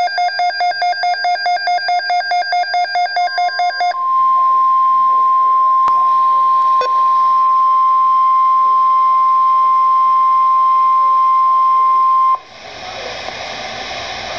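NOAA Weather Radio alert broadcast: a rapid buzzing burst of digital data tones (the SAME alert header) for about four seconds, then the single steady weather-radio alert tone sounding for about eight seconds. The tone cuts off suddenly to radio hiss.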